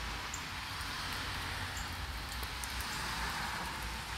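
Steady rain falling on pavement, grass and leaves: an even hiss with scattered sharp ticks of single drops.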